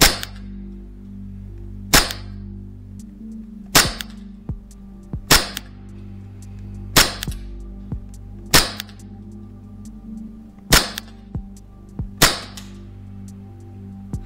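Novritsch SSP5 gas blowback airsoft pistol firing single shots, eight in all at a steady pace of about one every one and a half to two seconds, each sharp crack followed by a fainter tick.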